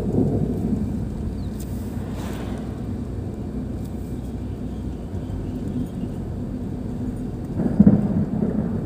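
Thunder rumbling over the steady low road noise of a car driving. A loud rumble fades over the first second and another swells up near the end; an oncoming car hisses past about two seconds in.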